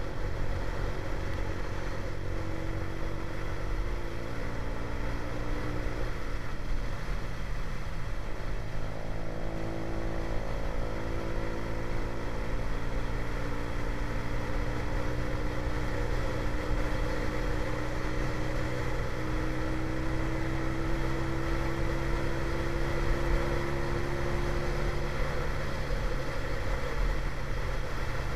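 Motorcycle engine running at road cruising speed under wind rumble on the microphone; the engine note shifts a little a few times and creeps up gently in the second half.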